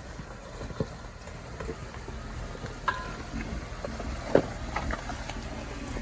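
Jeep Wrangler crawling over a rocky twister section: a steady low engine and drivetrain rumble with scattered clicks and knocks of rocks under the tyres, the loudest knock a little past four seconds in, and a brief squeak about three seconds in.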